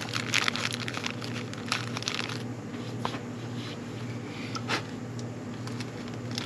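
Thin plastic parts bag crinkling in the hands as a new brake master-cylinder spring is taken out of it: a dense run of quick crackles for the first couple of seconds, then a few scattered ones.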